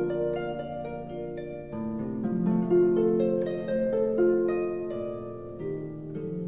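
Solo harp playing a slow aria: single plucked melody notes ring over sustained lower notes, with new bass notes struck about two seconds in and again near the end.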